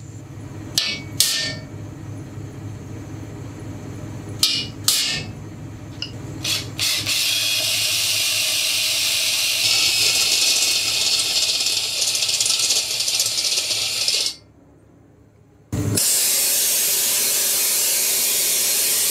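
A few sharp taps of a hammer on a center punch, then a power drill boring through metal with a loud, steady hissing cutting noise. The drilling stops abruptly about two-thirds of the way in and starts again a second and a half later.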